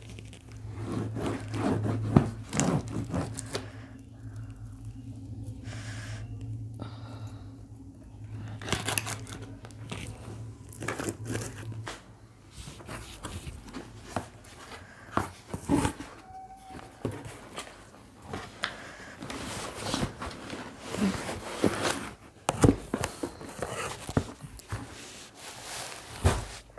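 Packing tape being pulled and torn off a cardboard shipping box, then cardboard flaps scraping and crinkling as the box is opened and a boxed item is slid out, with irregular clicks and rustles throughout. A low steady hum runs beneath the first half and stops about halfway through.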